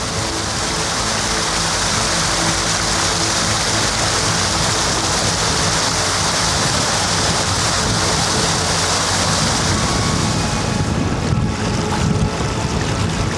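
Mountain stream rushing over rock slabs and small cascades, a steady noise. About eleven seconds in, wind starts buffeting the microphone.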